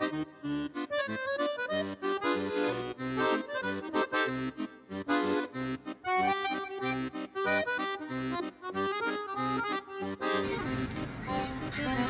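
Background music: an accordion solo playing a melody over a regular low accompaniment. About ten and a half seconds in, the sound thickens into a hazier, hissier texture.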